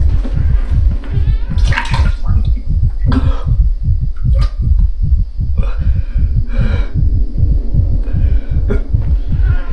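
Rapid, deep throbbing pulse like a racing heartbeat, a steady low sound-design rhythm several beats a second. Over it come short, breathy heaving gasps from a man retching over a toilet, at irregular intervals about a second apart.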